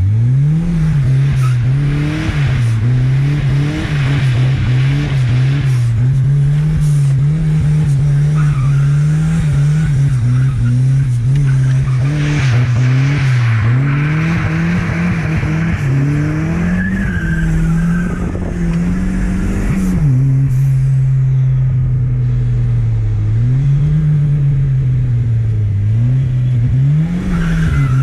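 Turbocharged Chevette's engine revving up and falling back again and again as the car is drifted, with tyres squealing at moments.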